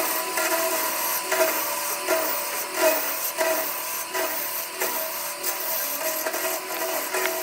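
Wood lathe running while a tool cuts the spinning wood, giving a steady scraping noise with frequent small pulses.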